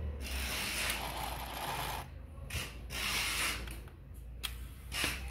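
Hands handling parts of an industrial sewing machine: rubbing and rattling in several bursts, the longest in the first two seconds, over a low steady hum.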